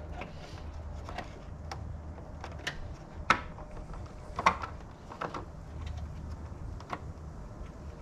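Plastic clicks and knocks as the rear turn-signal bulb socket is twisted and worked loose from a Toyota 4Runner's tail light housing, with two sharper clicks about three and four and a half seconds in.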